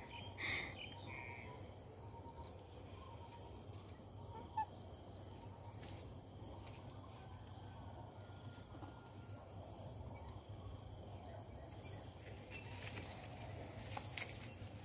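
Faint outdoor ambience with an insect trilling at a steady high pitch in long stretches broken by short gaps, a short high call about half a second in, and a few light clicks.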